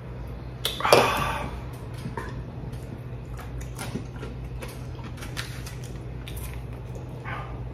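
Eating sounds at a table. About a second in, a knock and a short loud breathy exhale follow a swig from a drinks can; after that, light scattered clicks of chopsticks against a plastic bento tray, over a steady low hum.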